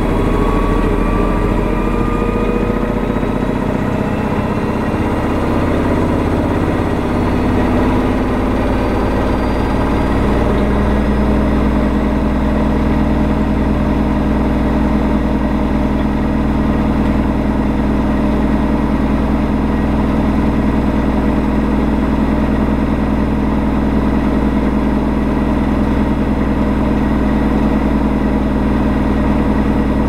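AEG 8000 Series Lavamat washing machine on its final spin: the motor's whine rises as the drum speeds up over the first ten seconds or so, then holds steady at top spin speed of 1200 rpm, with a slow regular throb about every three seconds.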